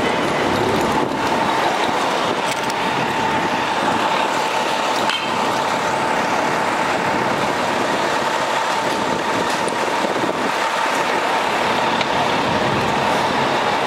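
Fire engine running steadily, a dense engine noise with a constant mid-pitched whine, and a few faint knocks over it.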